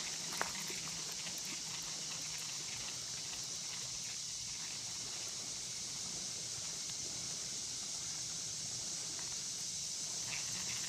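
Steady high-pitched outdoor hiss with a faint low hum underneath, and one light click about half a second in.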